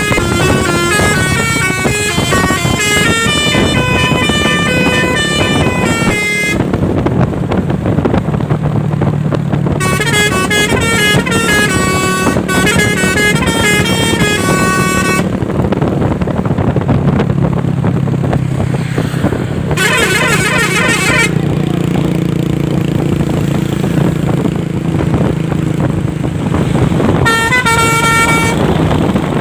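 Truck 'telolet basuri' musical air horns playing melody phrases as runs of stepped notes: a long run in the first six seconds, another from about ten to fifteen seconds in, a quick warbling trill around twenty seconds, and a short run near the end. A steady low engine rumble runs underneath.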